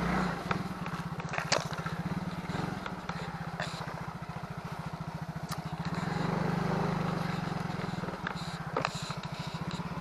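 Small motorcycle engine running at low speed with an even putter, opening up a little about six seconds in and easing off again about two seconds later. A few sharp knocks and rattles come as the bike rolls over a rough dirt track.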